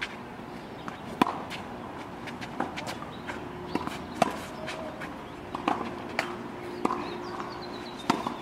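Tennis rally on a clay court: sharp knocks of the ball off polyester-strung rackets and its bounces, about one every second, with shoes shuffling on the clay between shots.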